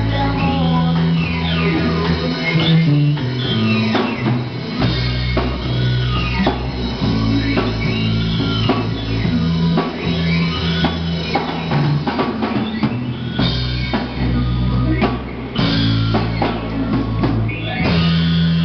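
Live rock band playing: a drum kit, electric guitar and bass guitar through amplifiers, with a bass line of held low notes that changes about once a second.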